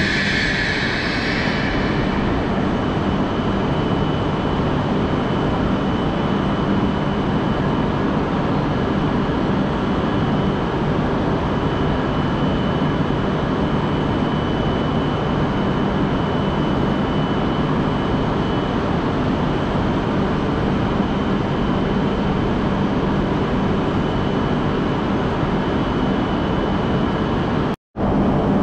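Shinkansen train at the platform, a steady rumble with a constant low hum and a thin high whine, brighter and higher for the first couple of seconds. The sound cuts out for a moment near the end.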